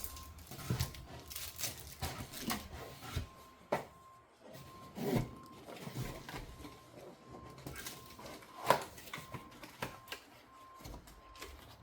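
Handling and unpacking stand poles for photography lights and a backdrop: rustling packaging with irregular clicks and knocks, the sharpest click about three-quarters of the way through.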